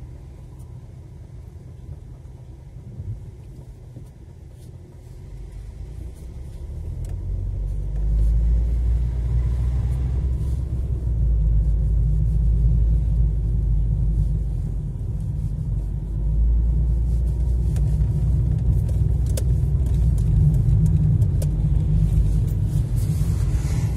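Low, steady rumble of a car's engine and tyres heard from inside the cabin, quieter at first while stopped in traffic, then swelling about a third of the way in as the car pulls away and picks up speed.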